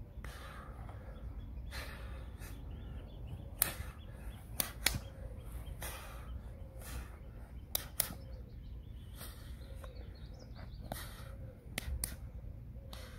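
A person working through a silat form with kicks, knees and elbows: swishes of movement and several sharp slap-like impacts, a few of them in quick pairs, over a steady low rumble.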